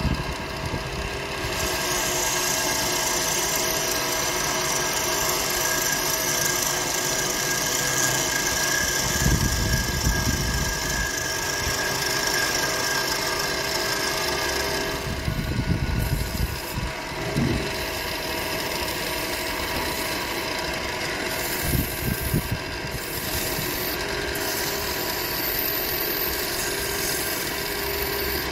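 Wood lathe running with a steady motor hum while a turning chisel scrapes and cuts a spinning wooden spindle, giving a continuous hiss of cutting, strongest in the first half.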